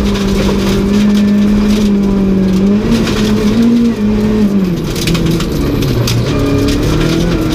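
VW Golf 3 Kit Car rally car engine, heard from inside the cabin, held at steady high revs, then dropping about four seconds in and picking up again near the end. Gravel stones rattle and ping against the underbody throughout.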